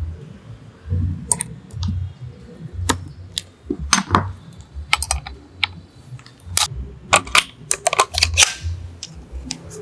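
A quick, irregular run of sharp clicks and light knocks, like hard parts being handled and set down, thickening in the second half.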